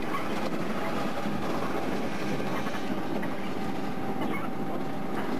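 Steady engine and road noise heard inside the cabin of a moving bus.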